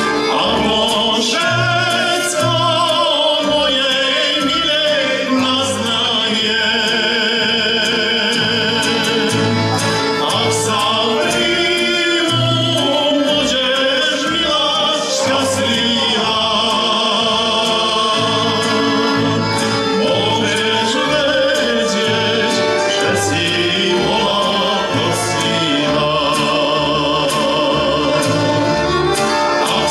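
A male voice sings a Slovak folk song with a wavering pitch. A folk band of violins, accordions, guitar and double bass accompanies him, with the bass marking a steady beat.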